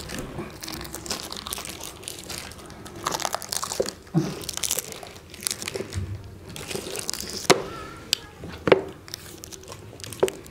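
Plastic chocolate-bar wrappers crinkling and rustling as two people bite and tug at them with their teeth to tear them open, with scattered sharp crackles.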